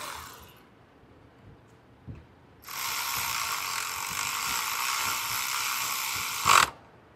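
Ratchet wrench with a 10 mm socket running a nut down: a steady ratcheting run of about four seconds, starting near three seconds in and ending in a brief louder burst. A light knock about two seconds in.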